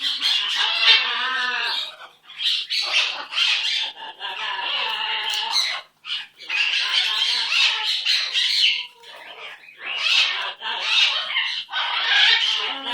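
Pet bird chattering and squawking in several bouts of a few seconds each, with short pauses between them.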